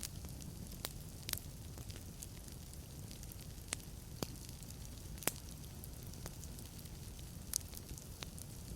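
Wood logs burning in a fireplace: a steady low rumble of flame with sharp crackles and pops, about eight of them at uneven intervals.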